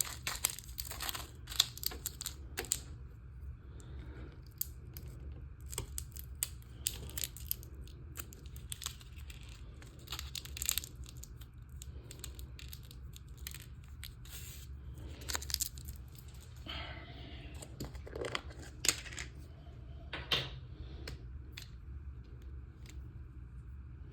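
Plastic model kit parts being handled and fitted together: scattered sharp clicks, taps and short scraping rustles, irregular throughout, over a steady low hum.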